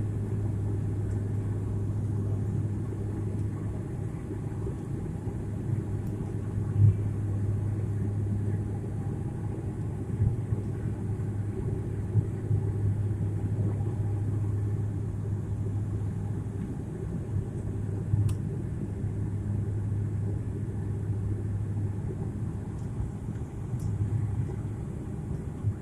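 Turboprop airliner cabin noise on descent with the landing gear down: a steady drone of the engines and propellers, with a strong low hum and a few light knocks.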